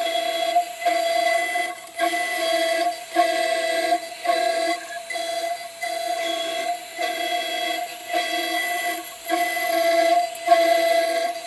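CNC 6040 router drilling holes in an aluminium plate: a steady pitched machine whine, broken by a short dip about once a second.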